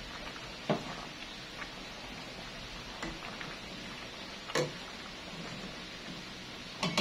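A plastic ladle stirring thick cooked mung beans in a stainless steel pot, knocking against the pot a few times in short, light clicks over a faint steady hiss.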